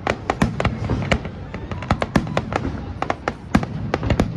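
Fireworks going off in a rapid, irregular run of sharp bangs and cracks, several a second, over a low rumble.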